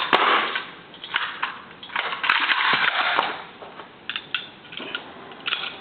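Metal parts of a machine gun clacking and rattling in irregular bursts as the weapon is handled and cleared, with scattered sharp clicks.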